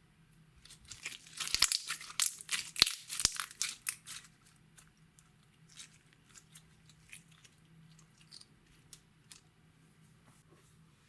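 Slime being kneaded and stretched by hand: a dense run of crackling pops and squelches for about three seconds, then scattered single pops.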